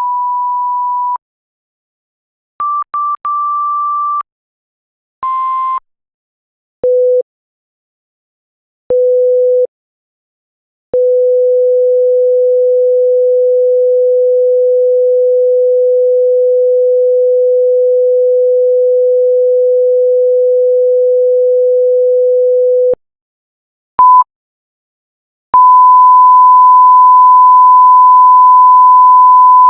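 A series of censor bleeps: single pure beep tones of different pitches and lengths, separated by short silences. Short higher beeps and one beep laced with static come first, then short lower beeps and a long low tone of about twelve seconds, then a short and a long higher beep near the end.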